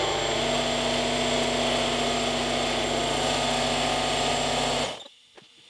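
Lidl Parkside PKZ 80 C5 compact piston-compressor air pump running steadily while inflating a car tyre, then cutting off suddenly near the end as the tyre reaches its target pressure of 2.3 bar. A few faint clicks follow.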